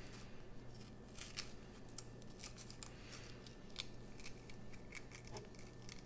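Kitchen knife cutting into a fresh banana pepper on a wooden cutting board to cut out its seeded core: faint, irregular crisp cuts and clicks.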